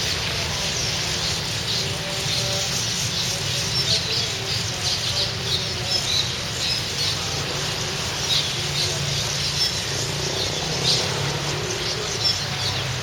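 A large flock of small birds perched on wires, chattering with many short, high chirps that overlap continuously, over a steady low hum.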